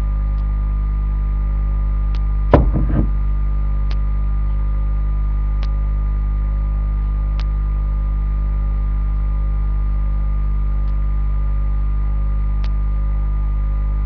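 Steady electrical mains hum, with faint sharp ticks repeating about every second and three quarters and one short loud knock about two and a half seconds in.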